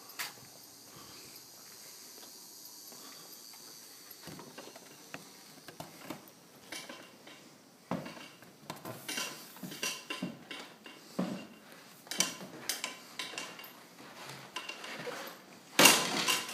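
Scattered light clicks and knocks, sparse at first and coming more often from about four seconds in, with one loud clatter near the end.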